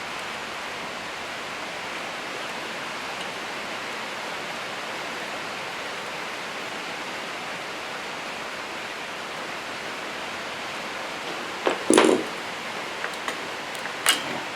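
A steady, even hiss. Near the end it is joined by a short clatter and a few sharp clicks, the sound of small parts and tools being handled while the RC truck is taken apart.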